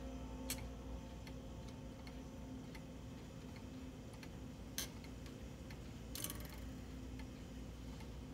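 Antique Gustav Becker weight-driven wall clock movement ticking steadily, with a few louder clicks from the motion work as the minute hand is turned by hand.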